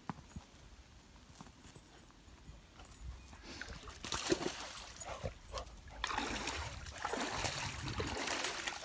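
A dog splashing as it wades through a shallow stream. Quiet at first; the splashing starts about three and a half seconds in and grows louder and steadier near the end.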